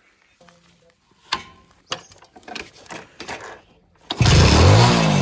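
Scattered sharp metallic clanks and rattles, then about four seconds in a backhoe loader's diesel engine comes in loud, its revs rising and falling.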